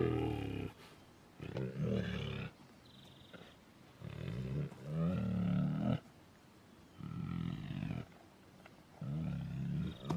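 Tiger roaring in a series of about five low calls, each a second or so long, with short pauses between.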